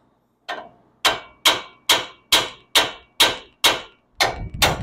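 Hand hammer striking steel at the outer tie rod end on a truck's steering knuckle, about ten blows in an even rhythm of roughly two a second, each ringing briefly. The taps are meant to shock the tie rod end's tapered stud loose from the knuckle; it has not yet dropped free.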